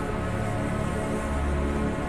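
Background music with sustained notes over a deep bass.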